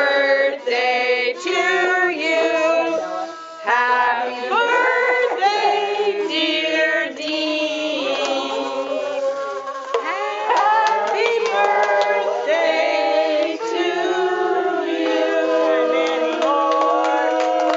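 A group making music together, with several overlapping notes that slide and change every second or so. Some long notes are held steady in the second half.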